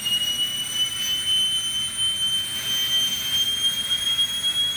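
Small turbine spinning at high speed: a high-pitched whine over a hiss that rises slowly in pitch as it speeds up, played through a lecture hall's speakers.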